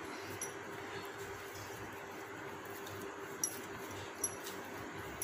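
Faint, soft handling sounds of hands rolling parotta dough into balls in a steel bowl, with a few light clicks and a steady faint hum underneath.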